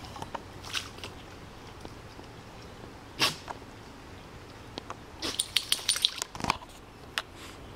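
A Cairn Terrier splashing in shallow pond water as she lunges at a fish: one sharp splash about three seconds in, then a quick flurry of splashes a little past the midpoint.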